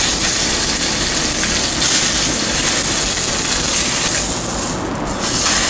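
Salted yellowfin tuna block searing in a very hot oiled frying pan, a steady hissing sizzle as the fish is turned with tongs to sear only its surface; the sizzle dips briefly about five seconds in.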